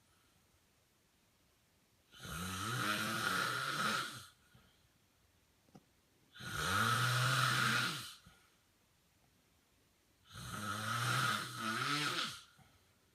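A man snoring in his sleep: three long snores, each about two seconds, coming about every four seconds with quiet gaps between.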